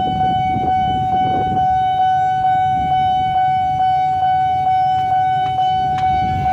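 Level-crossing warning bell ringing continuously, struck about three times a second with one steady ringing tone, over a low rumble of traffic or a train.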